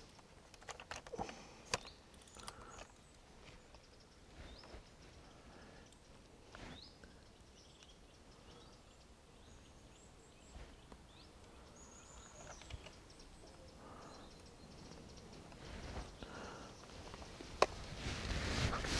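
Quiet outdoor ambience with scattered small clicks and knocks and a few faint bird chirps; a rustling noise grows louder near the end.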